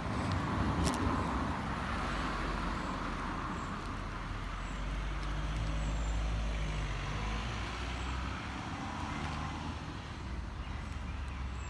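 Road traffic passing: a low engine rumble and tyre noise, the rumble strongest around the middle.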